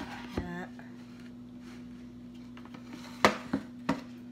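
Bamboo cutting board knocking on a kitchen countertop as it is set down and shifted into place: a light knock just after the start, then three wooden knocks a little over three seconds in, the first the loudest, over a steady low hum.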